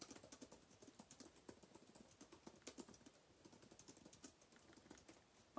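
Faint, irregular typing on a computer keyboard: many small key clicks.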